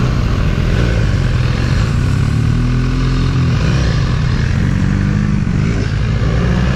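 BMW motorcycle's engine running under way, its pitch rising and falling several times as the throttle is opened and eased, over steady wind rush on the microphone.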